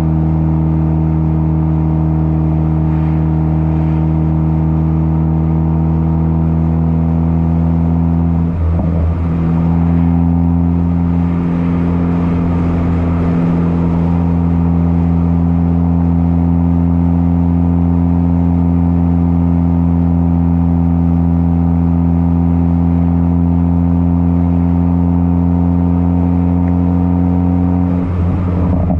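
Ford Focus ST exhaust, with a catless downpipe and muffler-delete cat-back, running at a steady engine speed as a low, even drone. The drone breaks briefly about eight and a half seconds in and again near the end, then resumes at the same pitch.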